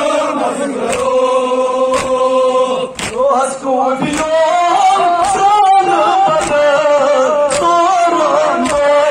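Men's voices chanting a noha, a Shia mourning lament, as a melodic line in unison. Sharp chest-beating (matam) strikes come about once a second in time with it.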